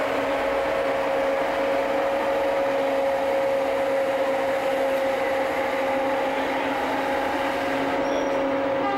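A steady machine hum with a constant mid-pitched tone and a lower tone beneath it, holding level throughout.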